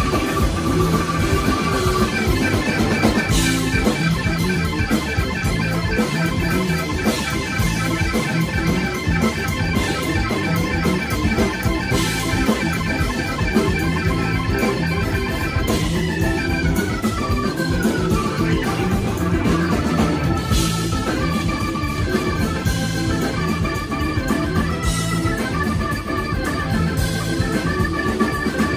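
Hammond-style drawbar organ playing a lead solo of fast repeated-note runs and trills over a live rock band, with a quick falling run a little past halfway. Drums with cymbal crashes and bass keep time beneath it.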